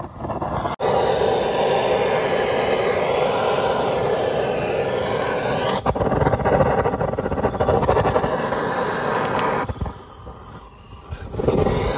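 Handheld butane flame gun on a gas can, blowing its flame onto charcoal in a portable barbecue grill to light it. It makes a steady rushing hiss that drops away for a moment about ten seconds in, then picks up again.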